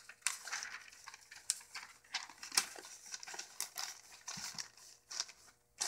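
Sheets of newspaper rustling and crinkling in quick, irregular rustles as they are laid and pressed flat by hand over shredded-paper bedding.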